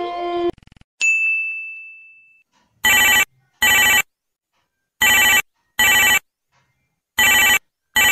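A telephone ringing in double rings, 'ring-ring', three pairs about two seconds apart, starting about three seconds in. Before it, a held tone cuts off about half a second in, and a single bright ding sounds a second in and fades.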